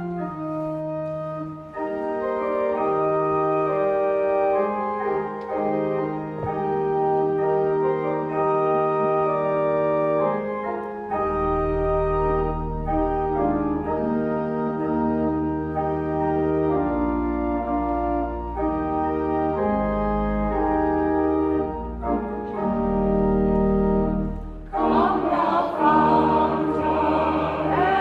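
Church organ playing slow, held chords, with deep pedal bass notes coming in partway through. Near the end a choir begins singing over it.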